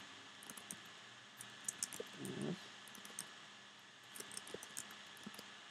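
Faint computer mouse clicks, a few scattered ones, over a low steady background, with a brief low vocal murmur about two seconds in.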